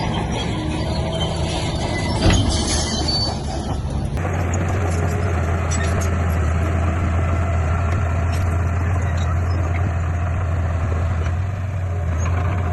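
Diesel engines of heavy earthmoving machinery running, with one sharp knock about two seconds in. About four seconds in the sound switches abruptly to a steady low engine drone.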